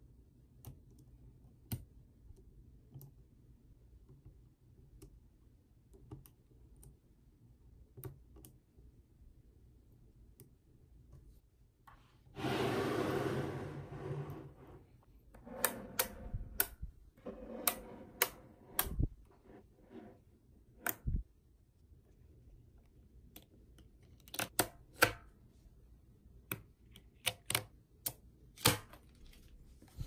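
Mini neodymium magnet balls clicking and snapping together as slabs of them are handled, pulled apart and joined; sharp clicks come irregularly. A denser rattling rush lasts about two seconds near the middle, and the clicks bunch more thickly after it.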